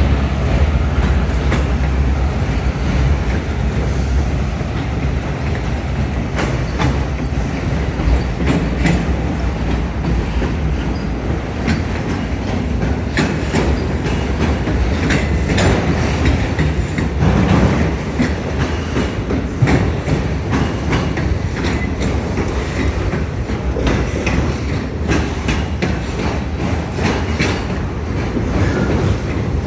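Freight train of autorack cars rolling past, a steady rumble of steel wheels on rail broken by frequent clicks of wheels over rail joints, with a faint squeal at times. A low engine drone fades out in the first few seconds.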